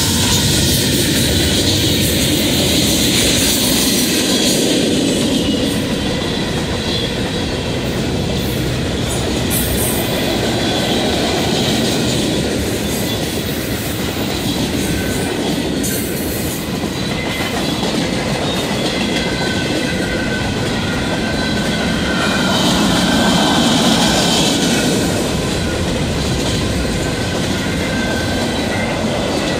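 Freight train rolling past at close range: steady rumble and rattle of loaded freight cars' steel wheels on the rails, with clickety-clack over the rail joints. The last diesel locomotive's engine tails off in the first moments, and the noise swells briefly a little past twenty seconds in.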